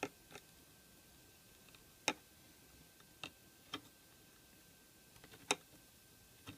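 Light clicks of metal multimeter probe tips touching and moving on diode leads on a power supply's circuit board during a diode test: about half a dozen sharp clicks spaced unevenly over near quiet.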